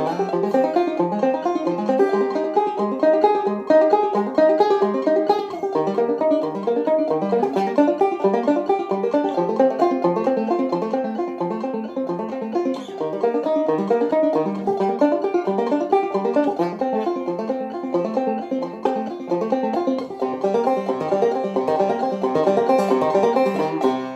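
Five-string banjo played clawhammer style: a continuous run of quickly picked arpeggiated notes, each note ringing briefly over the next.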